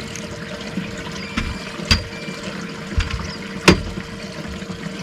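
Boat livewell pump running with a steady hum, water pouring into the livewell, and a few sharp knocks.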